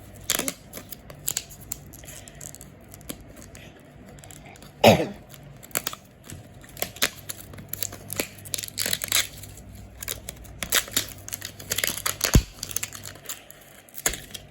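Toy packaging wrapping being torn open and crinkled by hand: irregular rustling and crackling, with a louder rip about five seconds in and a sharp click near the end.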